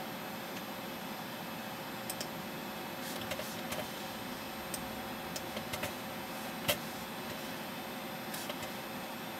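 Steady hiss and hum of a running desktop computer, with a faint steady tone and scattered small clicks, the loudest a little before seven seconds in.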